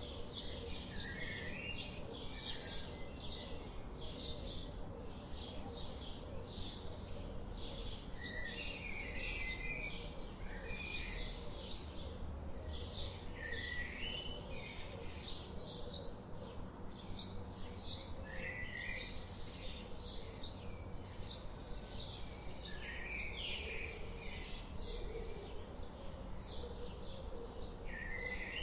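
Birds chirping continuously: a rapid string of short high notes, a few each second, with lower wavering calls breaking in now and then. A steady low rumble runs underneath.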